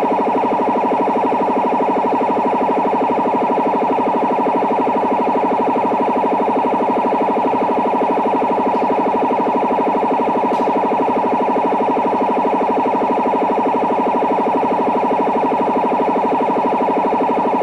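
Bubble jammer on shortwave: a jamming carrier swung rapidly back and forth in frequency on the foreign station's channel, making a steady, loud, warbling siren-like noise.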